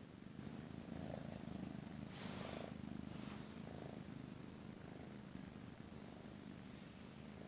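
Kitten purring steadily while being stroked, a close, low, fast-pulsing rumble, with a short rustling noise about two seconds in.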